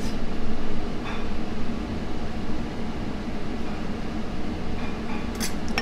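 Steady hum of kitchen ventilation fans, with a few sharp clinks of dishes near the end.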